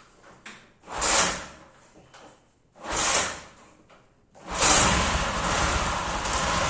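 2003 Honda CG Titan's single-cylinder engine coughing to life after years standing: two short bursts about one and three seconds in, then it catches at about four and a half seconds and keeps running.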